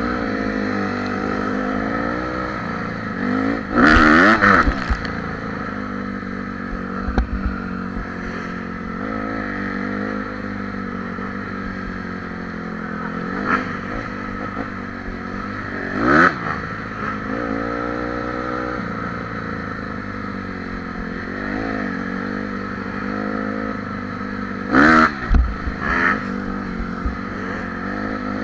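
Dirt bike engine running on a trail ride, heard from on board, its pitch rising and falling as the throttle opens and closes. Sharp knocks and clatter break in about four seconds in (the loudest), again about sixteen seconds in and twice near the end.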